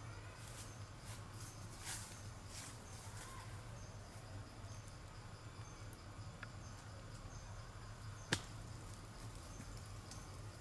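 Faint outdoor ambience: a short high chirp repeating at an even pace, over a steady low hum, with scattered small clicks early on and one sharp click about eight seconds in.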